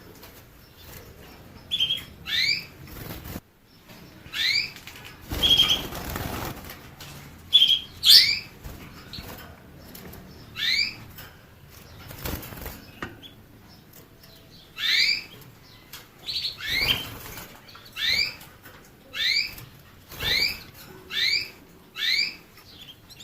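Canary calling with a series of short, rising chirps, roughly one a second, some in quick pairs. A few brief bursts of rustling noise come between them.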